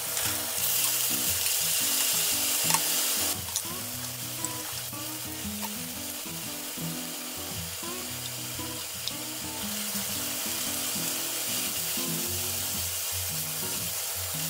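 Oil sizzling steadily as small cocktail sausages, cut into octopus shapes, fry in a rectangular tamagoyaki pan, with a few light taps of chopsticks on the pan. The sizzle is louder for the first few seconds, then settles lower.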